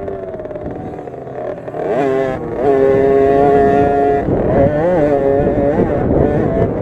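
A 50cc two-stroke motocross minibike engine running under throttle: the revs climb about two seconds in, hold high for over a second, then rise and fall repeatedly as the throttle is worked over the rough track.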